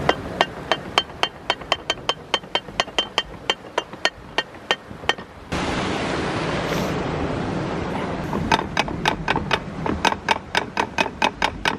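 Canal lock paddle gear being wound up with a windlass: the pawl clicks over the toothed rack in a steady run, about four clicks a second. Partway through, a steady rushing noise starts abruptly. Then the clicking resumes, faster, about six a second.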